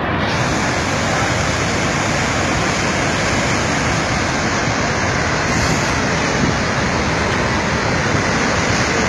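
Flash-flood debris flow of mud and rock rushing down a mountain valley: a loud, steady rushing noise with no letup.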